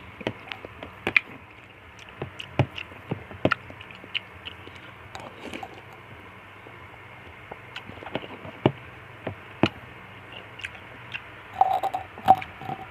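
A person eating fruit soup with nata de coco close to the microphone: irregular chewing and squishing, with a spoon clicking and scraping against the bowl, the clinks loudest and ringing briefly a little before the end.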